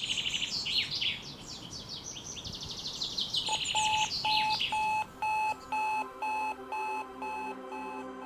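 Birds chirping and singing, then about three and a half seconds in a digital alarm clock starts beeping, short evenly spaced beeps about two a second.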